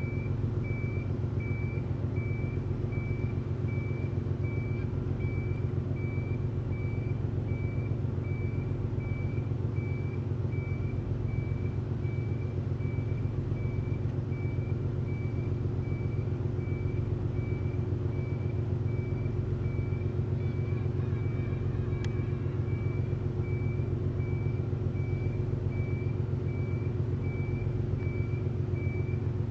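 A vehicle's reversing alarm beeping steadily, about two beeps a second, over a steady low engine hum.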